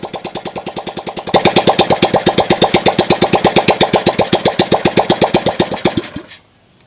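Freshly overhauled Honda Dash single-cylinder four-stroke engine running on its first start, with no exhaust pipe fitted, so each firing stroke comes as a sharp, rapid bark. It gets louder about a second in, then slows and stops about six seconds in.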